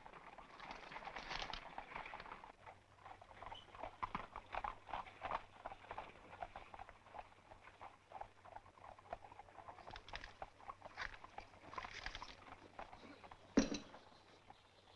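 Quiet soundtrack with faint, irregular small clicks and taps, and one louder knock near the end.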